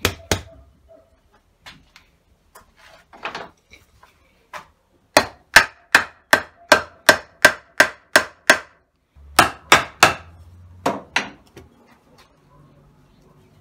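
Sharp wooden knocks as a pine table leg's dovetail is driven into its slot in a pine pedestal column. A steady run of about ten blows comes at roughly three a second, with a few more scattered after it as the joint seats.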